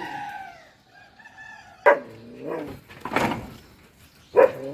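Dog barking three times, the barks about two seconds in, a second later and near the end, after a whining call that slides down in pitch at the start.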